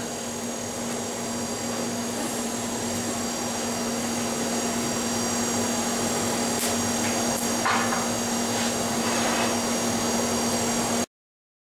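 Forge blower running steadily: a fan-like rush with a constant low hum, slowly growing louder, with a few faint clicks about two-thirds of the way through. The sound cuts off abruptly just before the end.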